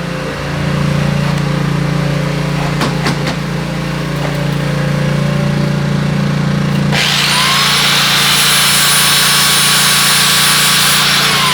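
A power grinder runs with a steady hum, then about seven seconds in bites into metal with a loud, high grinding hiss for about four seconds as it grinds off a damaged exhaust header bolt. The pitch dips slightly near the end.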